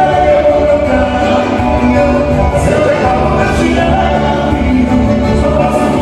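Live band music with a man singing over accordion, electric guitar and keyboard, with cymbal hits in the background.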